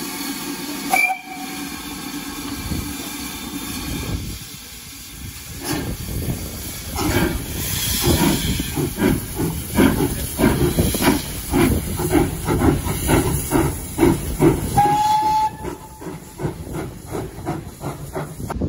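Two steam tank locomotives moving off together at the head of a train, with steam hissing at first and a short whistle toot about a second in. Then come regular exhaust chuffs that speed up as they get under way, with a second short whistle about three-quarters of the way through.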